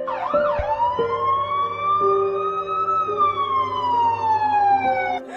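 A single long siren wail that rises in pitch for about three seconds, then falls slowly and cuts off near the end. Steady held notes of background music sound underneath it.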